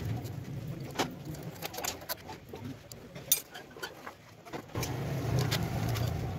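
Scattered light metallic clicks and clinks as engine parts and tools are handled, the loudest a single sharp clink a little past the middle. A low steady hum runs underneath at the start and again for the last second and a half.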